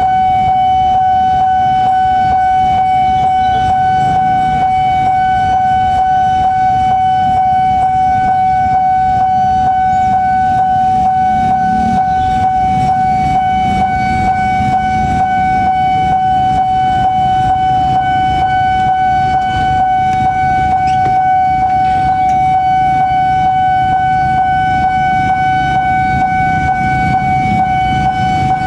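Level-crossing warning alarm sounding a single steady, unbroken electronic tone, the signal that a train is approaching, over a low rumble.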